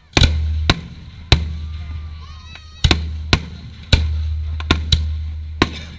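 Aerial fireworks shells bursting in quick succession: about nine sharp bangs, several followed by a deep rolling boom that fades away.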